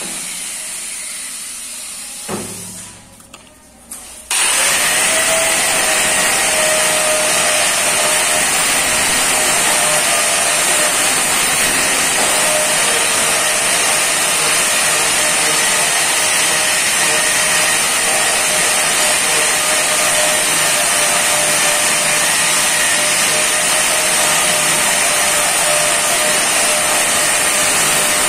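An electric angle grinder winds down with a falling whine. After a couple of soft knocks, a hand-held angle grinder starts abruptly about four seconds in and runs steadily with a high whine, grinding and polishing along the edge of a granite strip.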